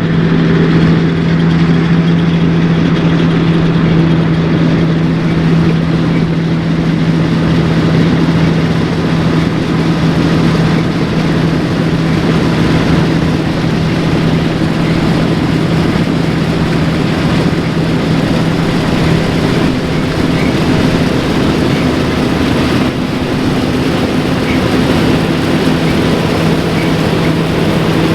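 Large diesel engine of a John Deere 9560 STS combine running steadily at working speed, a constant loud hum with a busy mechanical clatter around it.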